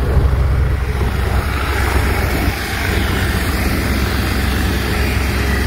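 Medical helicopter's rotor and engine running steadily, a loud low hum mixed with heavy wind noise buffeting the microphone.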